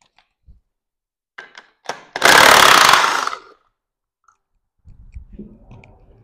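An aerosol spray can hissing in one steady burst of a little over a second, cleaning oily timing-chain debris off an engine block. A few short clicks come just before it, and low handling knocks follow near the end.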